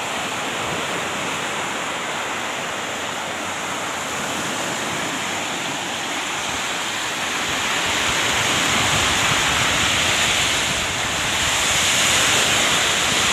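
Small waves breaking and washing up onto a sandy beach: a steady rushing hiss that grows a little louder in the second half.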